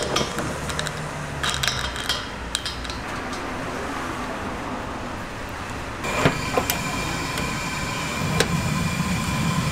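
Metal clicks and handling of an LPG regulator being fitted to a gas cylinder. About six seconds in, a butane torch lights the fryer's gas burner, and a steady hiss sets in that gains a low rumble near the end.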